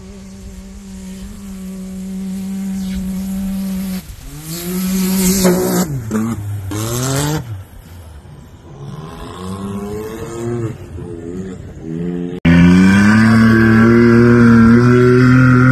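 A vehicle engine running steadily, then rising and dropping in engine speed several times in quick succession. After an abrupt cut about twelve seconds in, a much louder engine runs at steady speed.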